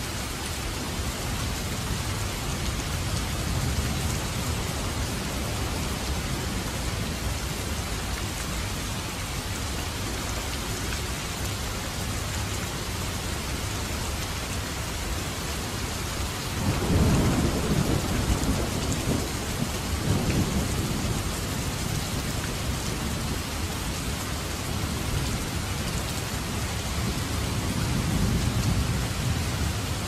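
Heavy rain falling steadily, with thunder rumbling low twice a little past halfway.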